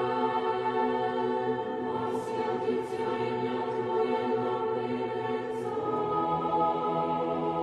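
Eerie droning choir-like music: many held tones sounding together as a sustained chord, which shifts about two thirds of the way in, with a few faint high swishes over it.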